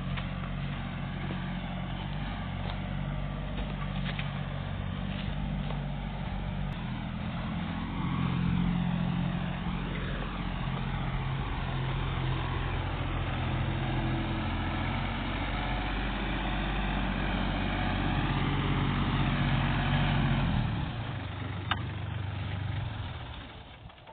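A 35-horsepower Kubota compact diesel tractor engine runs steadily as the tractor drags a root rake downhill, then drops in pitch and shuts off a few seconds before the end.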